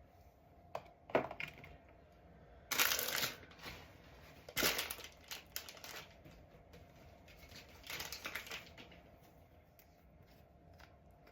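Intermittent handling noises: a few short bursts of rustling and crinkling with clicks, the strongest about three and five seconds in.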